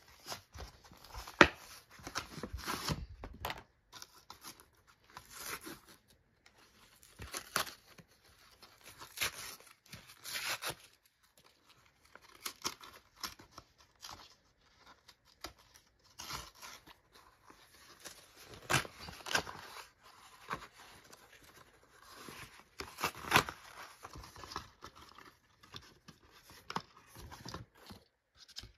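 A model-plane box being unpacked by hand: packaging tearing and rustling in irregular spurts, with sharp clicks and knocks in between.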